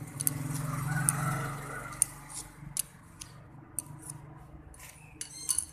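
Screwdriver blade scraping and clicking against the steel head of a ratchet while packing grease into its open mechanism, with scattered sharp clicks and a quick run of clicks near the end. A low hum runs under the first couple of seconds.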